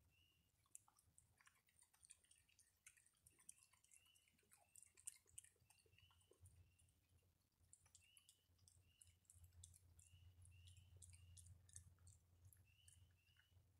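Faint crunching and clicking of a raccoon chewing dry food, in quick irregular crisp clicks. A faint high chirp repeats about once a second behind it.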